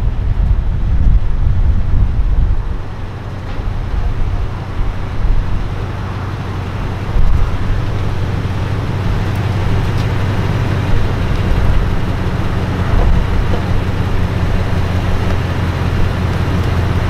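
Steady low rumble of a vehicle driving on a road: engine and road noise.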